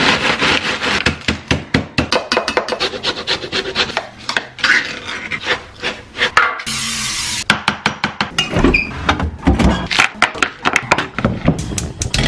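Rapid scraping, rubbing and clattering of kitchen utensils against bowls while slice bases are mixed, with a short steady hiss about seven seconds in.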